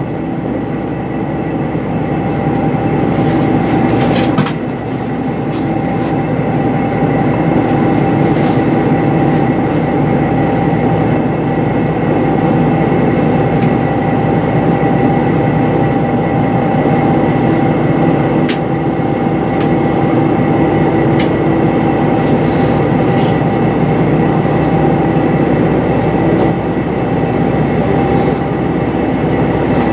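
Inside the passenger car of a HOT7000-series diesel limited express train on the move: a steady drone of engine and wheel noise with a few steady hum tones, and a few sharp clicks from the wheels over rail joints.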